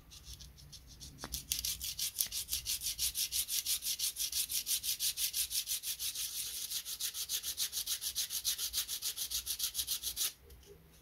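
Sandpaper on a sanding block rubbing a thin wooden strip in quick, even back-and-forth strokes, about five a second, starting about a second and a half in and stopping suddenly near the end. The strip is a model ship's lower beam shelf being sanded to shape.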